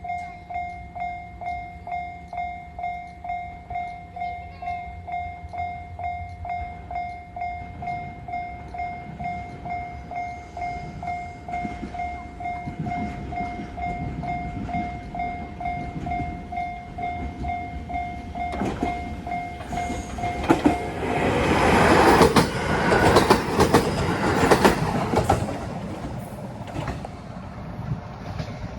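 Japanese railway level-crossing warning bell ringing a steady ding-ding, about one and a half strokes a second, while a local train approaches. The train passes over the crossing about 21 to 26 seconds in, loud with wheel clatter over the rail joints and drowning out the bell, then fades.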